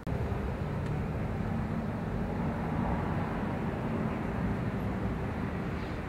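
Steady low engine rumble from a vehicle running nearby, starting abruptly at a cut.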